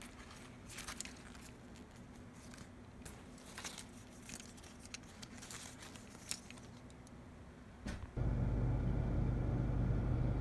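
Rustling of new fabric and crinkling of attached paper and plastic tags as it is handled, with scattered small clicks. About eight seconds in, it cuts to a louder steady hum with a low drone.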